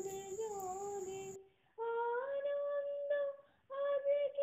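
Background music: a woman singing long held, gently gliding notes, with two short breaks where the sound drops out.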